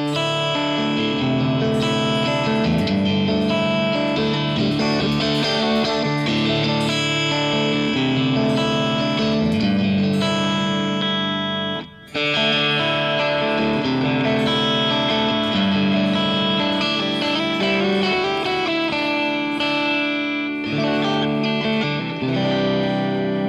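Strandberg Boden NX Classic headless electric guitar played through a Kemper Profiler with a clean-ish tone: ringing chords and notes, with a brief break about halfway through.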